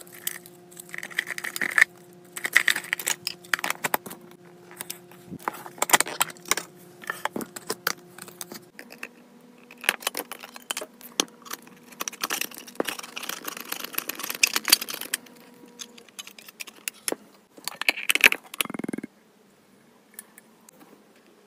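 Clear plastic snack wrappers crinkling and clicking as they are opened by hand over a plastic tub, then metal clinks and scraping as a metal powder can is opened. Near the end comes a short, louder burst as the powder is tipped from the can into a plastic container.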